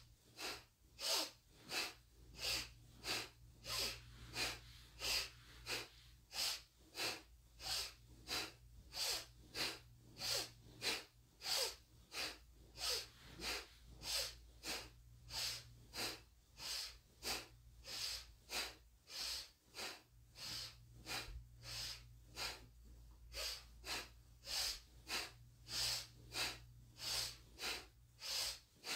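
A woman's forceful nasal breathing in a steady rhythm, about two sharp breaths a second, a strong inhale alternating with a strong exhale, all through the nose: the pumping breath of a Kundalini yoga pranayama.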